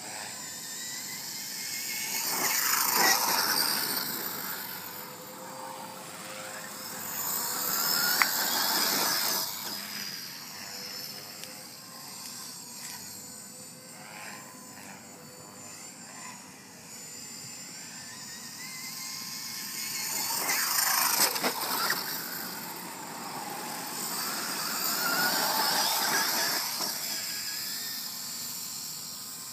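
Traxxas E-Revo 1/10-scale brushless electric RC monster truck's motor and gears whining high, rising and falling as it accelerates and slows, in four swells. There is a sharp knock about eight seconds in.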